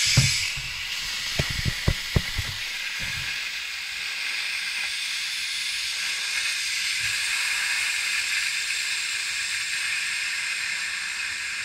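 Compressed air hissing steadily out of a truck's rear air-spring suspension (bellows-type air bags) as it is exhausted, the back end settling down onto its bump stops. Several low knocks in the first three seconds.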